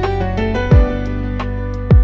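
Instrumental music with no singing: held, sustained notes over two deep drum thumps that drop in pitch.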